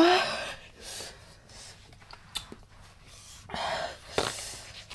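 A woman's sharp, hissing breaths drawn in and out through the mouth, beginning with a short voiced gasp and coming three or four times, the heat of chilli making her pant.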